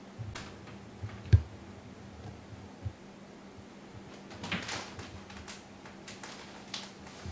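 Cats climbing on and around a small greenhouse with a clear plastic cover and plastic storage drawers: a sharp thump a little over a second in, a softer knock near three seconds, and rustling of the plastic about four and a half seconds in and twice more later.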